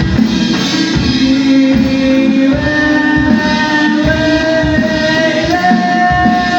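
A rock band playing live: drums and bass keep a steady beat under a long, held melody line that steps upward in pitch.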